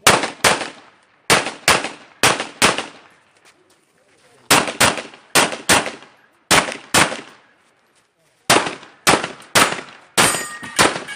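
Pistol fired in rapid double taps: about twenty shots, mostly in quick pairs, with short pauses between the pairs as the shooter moves from target to target.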